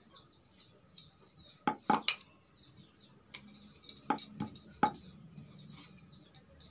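Wooden rolling pin knocking and clacking against a round wooden board while dough is rolled out, with a cluster of sharp knocks about two seconds in and another around four to five seconds. A bird chirps in quick, repeated high calls throughout.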